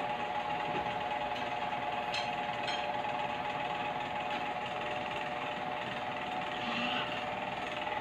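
Steady mechanical hum with a fine buzzing texture, holding level throughout, with a couple of faint light ticks a little over two seconds in.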